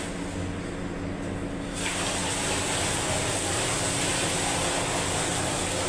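Water gushing into a sugar-melting tank, starting about two seconds in and then running steadily over a constant machine hum. The vessel is being filled with water to dissolve the sugar for a cough-syrup batch.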